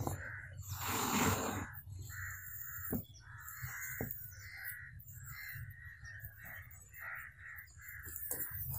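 Hands squeezing and kneading wet minced beef in a wooden bowl, a loud squelch about a second in, then short rasping squelches two to three times a second.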